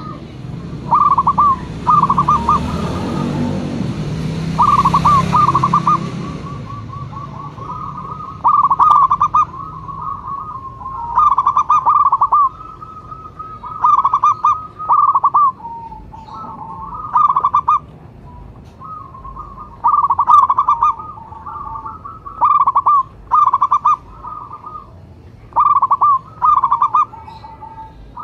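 Zebra dove (perkutut) cooing over and over in short phrases of quick notes, a phrase every second or two, with softer calling between them. For the first six seconds a rushing noise runs under the calls.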